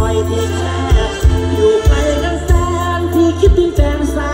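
Live mor lam band music over a stage sound system: a heavy, regular bass-drum beat under a sustained melody line.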